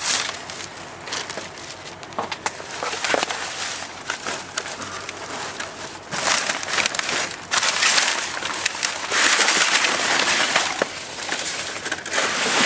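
Plastic trash bags and clear plastic packaging crinkling and rustling as hands rummage through dumpster trash, with many small crackles; it gets louder about halfway through.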